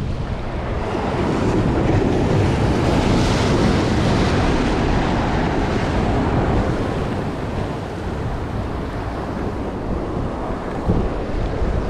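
Ocean surf washing over shoreline rocks, with wind buffeting the microphone; the wash swells for several seconds, then eases, and there is one brief knock near the end.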